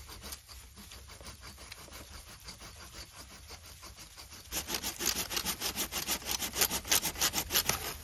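Hand saw cutting through a tree branch in quick, even back-and-forth strokes, the strokes growing louder and harsher about four and a half seconds in as the blade bites deeper.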